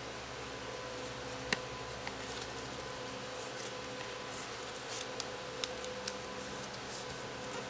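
A sheet of paper being folded and creased by hand on a tabletop: scattered crisp crackles and taps, the sharpest about a second and a half in and a few more close together past the middle, over a steady low hum.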